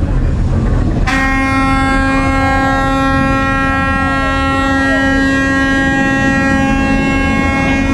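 A loud horn starts abruptly about a second in and holds one steady pitch, over a continuous low rumble.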